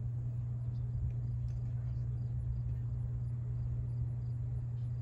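Steady low rumble of a freight train's diesel locomotives heard at a distance, with faint high insect chirping repeating about four times a second.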